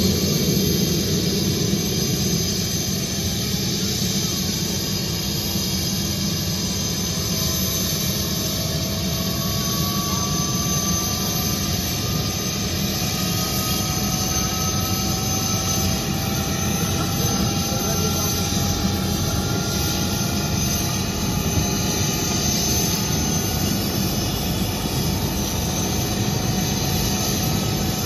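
Medevac helicopter on the ground with its turbine engine and rotor running, a steady loud noise. A high whine slowly rises in pitch from about eight seconds in as the engine spools up before lift-off.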